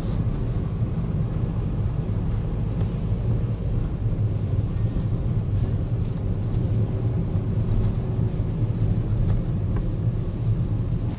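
Steady low rumble of a car driving on a snow-covered road, heard from inside the cabin: engine and tyre drone.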